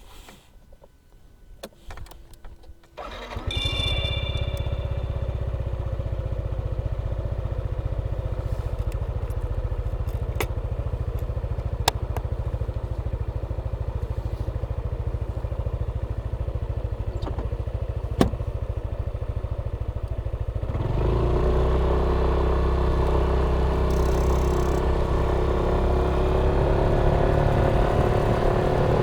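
Yamaha Tricity 155 trike's single-cylinder scooter engine starts about three seconds in and idles steadily, with two sharp clicks during the idle. About 21 seconds in it gets louder and the engine note rises slowly as the trike pulls away and speeds up.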